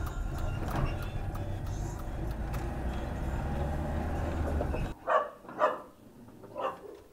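Steady low rumble of a car's engine and tyres heard inside the cabin, cutting off about five seconds in; then a dog barks three times.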